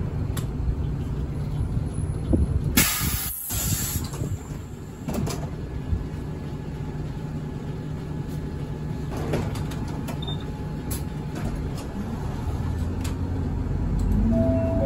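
Inside a city route bus: the engine drones steadily at low revs, with a loud hiss of released air from the bus's air system about three seconds in. Near the end the engine note rises as the bus pulls away.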